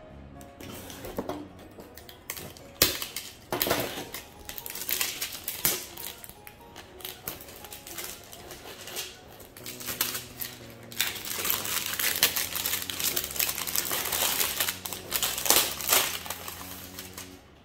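Cardboard figure box being handled and opened and its clear plastic packaging crinkled, in irregular crackles with a sharp knock about three seconds in and the densest crinkling in the latter half, over background music.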